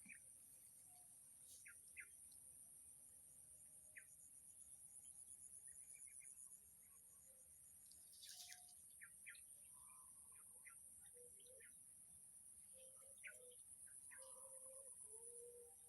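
Faint outdoor ambience: a steady high-pitched insect buzz with scattered short bird chirps, and a few low whistled calls near the end.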